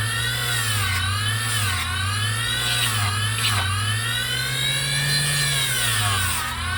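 Small 3-inch bench grinder running with a steady whine, its pitch sagging and climbing back again several times, about once every one to three seconds, as the motor slows under load and recovers.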